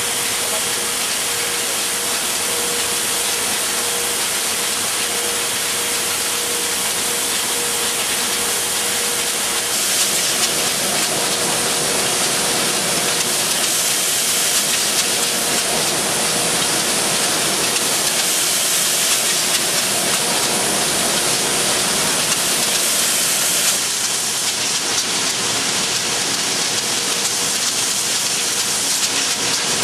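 Glass-bottle forming machinery and conveyor running: a steady, loud hissing din with a faint steady hum beneath it, shifting slightly about ten seconds in and again later on.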